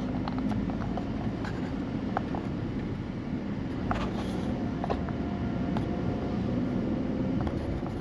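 Road noise inside a car driving slowly in traffic: a steady low rumble of engine and tyres, with a few faint clicks scattered through it.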